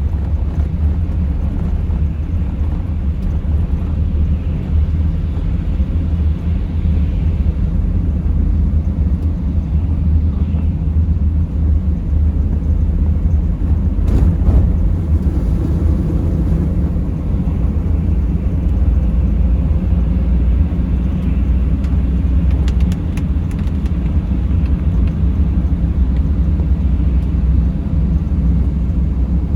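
Vehicle driving: a steady low rumble of engine and road noise, with one brief knock about fourteen seconds in and a few faint ticks near the end.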